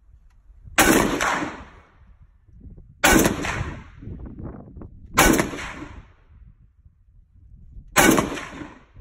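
Four single shots from a DP-28-type light machine gun, spaced two to three seconds apart, each loud crack trailing off in an echo over about a second.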